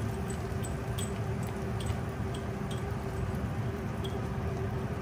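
Butterscotch chips and chopped walnuts sprinkled from a small glass bowl onto pancake batter in a skillet: faint scattered ticks over a steady low hum.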